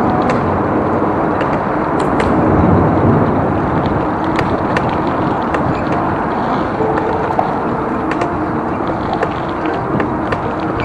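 Ride noise from a mountain bike rolling over a rough path: a steady rush of tyre and wind noise with scattered clicks and rattles from the bike.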